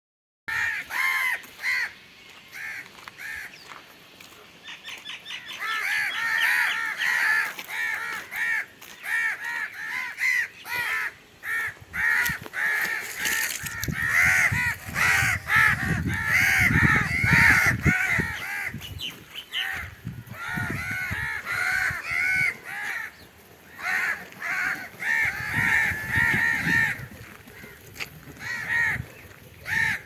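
Crows cawing over and over, many calls one after another. Low rumbling bursts come about halfway through and again later.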